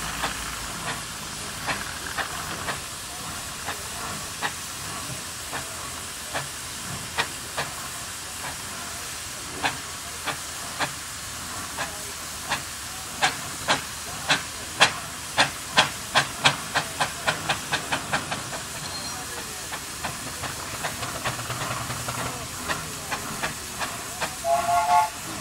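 Steam traction engine chuffing from its chimney as it moves off, the exhaust beats quickening from about one a second to three or four a second and then easing, over a steady hiss of steam. A steam whistle starts to sound near the end.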